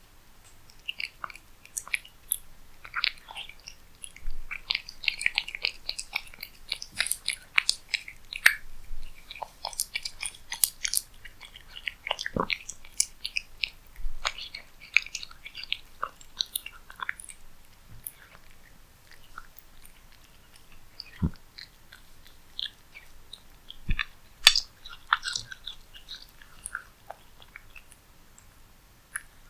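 A cat eating cat food close to the microphone: quick, irregular chewing sounds, thick through the first half and thinning out in the second.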